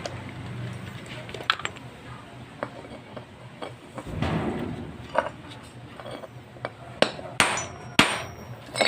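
Irregular sharp metallic knocks and clinks, with the loudest few close together near the end and a brief rustle about four seconds in.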